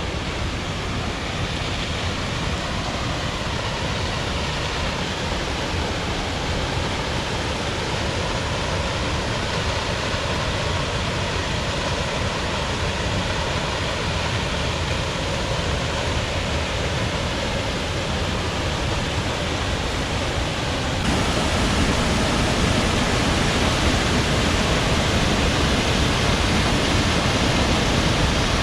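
Steady rush of Rifle Falls' waterfall, an even roar of falling water that grows suddenly louder about three quarters of the way through.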